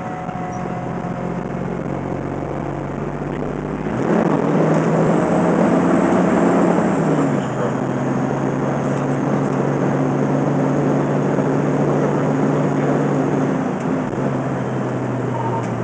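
Fire engine's diesel engine pulling as the truck accelerates, getting louder about four seconds in, then its drone steps down in pitch a few seconds later as the transmission shifts up. Heard from inside the cab.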